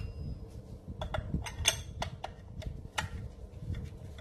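A metal tightening tool clicks and clinks against the cylinder fins and Torx cylinder bolts of a STIHL FS280 trimmer engine as it is fitted into the bolt heads and turned to snug them. There are about seven sharp clicks, starting about a second in, over a low rumble.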